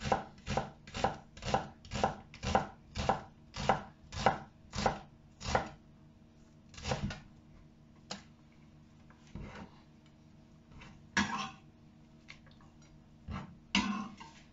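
Chef's knife slicing an onion into rings on a wooden cutting board, a steady run of cuts about two a second for the first five or six seconds, then a few scattered knocks of the blade on the board.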